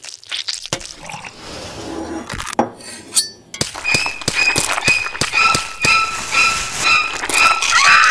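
Kitchen knife clinking and scraping against a glass bowl as chunky guacamole is mixed. In the second half it becomes a quick run of clinks, two to three a second, many with a short high squeak of steel on glass.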